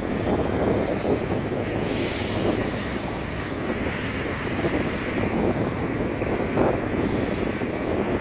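Wind buffeting the microphone over the rushing noise of sea surf, a steady rough rumble that rises and falls irregularly.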